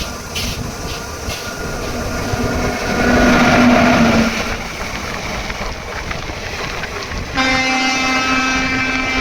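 Indian Railways train running with a steady rumble, its horn sounding briefly about three seconds in, then a long, steady blast starting about seven seconds in and held to the end.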